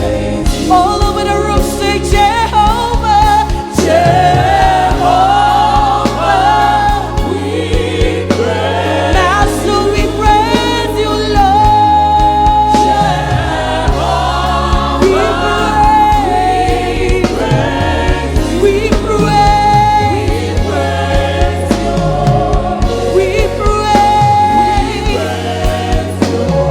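Live gospel worship music: a choir and lead voice singing over a band with a steady bass line and drum beat.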